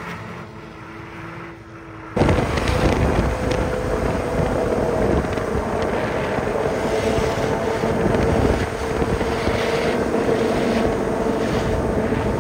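For about two seconds a distant engine holds steady revs: the Nissan GT-R climbing the snowy ski slope. Then, with a sudden jump, a much louder and closer engine drones steadily over a rush of noise.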